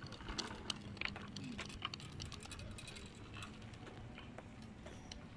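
Child's small bicycle with training wheels rolling over asphalt, giving a run of irregular light clicks and rattles over a faint steady hum.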